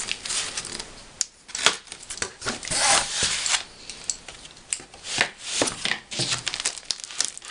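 Scissors snipping through a cardboard wrapping, with the cardboard and paper scraping and rustling as they are handled and folded open. A longer, louder rustle comes about three seconds in.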